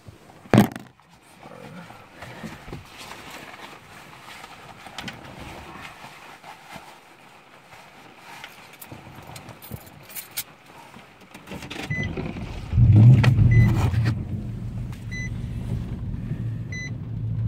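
A door slams shut about half a second in, followed by quiet keys-and-handling noises in the cab. Near the end a warning chime sounds four times about a second and a half apart while the Nissan Titan's 5.6-litre V8 starts, flares, and settles to a steady idle.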